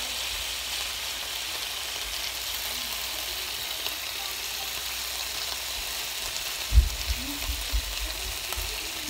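Chicken skewers sizzling steadily on an electric contact grill, a constant frying hiss. A few low thumps come about seven seconds in.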